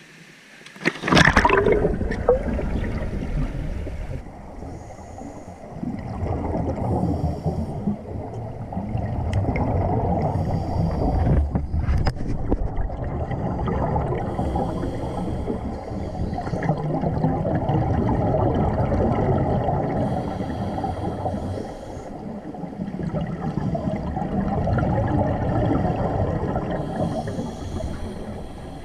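A diver jumps off the dock and splashes into the water about a second in. Then, heard underwater, scuba regulator exhaust bubbles rumble and gurgle, swelling and fading every few seconds with the divers' breaths.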